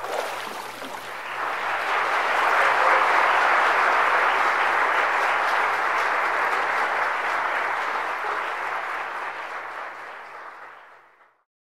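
Congregation applauding. The clapping builds over the first couple of seconds, holds, then fades away and stops just before the end.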